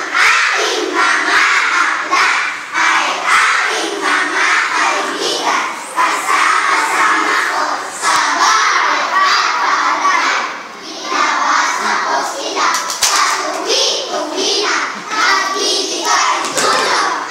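A speech choir of young children reciting together in unison, loud and close to shouting in places, in short chanted phrases with brief pauses between them.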